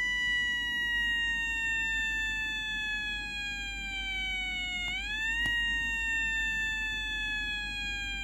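Homemade BD139/TIP42C transistor siren circuit wailing through a small loudspeaker. Its buzzy electronic tone slowly falls in pitch, swoops quickly back up about five seconds in, then begins falling again.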